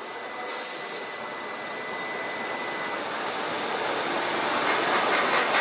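3636 CNC router's table being jogged along its Y axis by the drive motor: a steady whirring hiss with a faint high whine over the first few seconds, growing louder toward the end.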